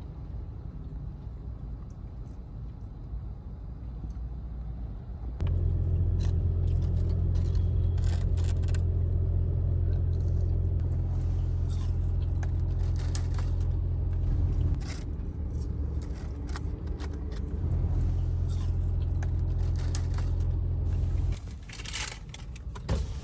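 A steady low motor hum starts about five seconds in, drops away for a few seconds, then runs again before stopping near the end. Scattered clicks and scrapes of handling are heard throughout.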